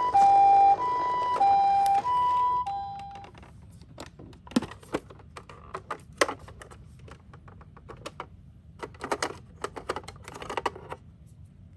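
Toy ambulance's electronic hi-lo siren, alternating evenly between a higher and a lower note, stopping about three seconds in. Scattered clicks and knocks follow.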